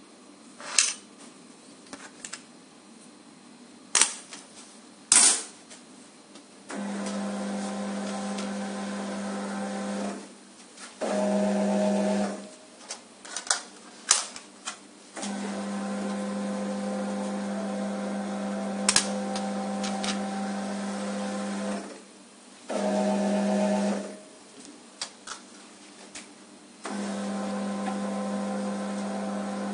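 QMAX NF-1 needle detector's conveyor motor running with a steady hum in three long spells. Between them a short buzzer tone sounds twice: the detector's alarm for a metal buckle giving a high signal. Sharp clicks from the buckles being handled come in the first few seconds.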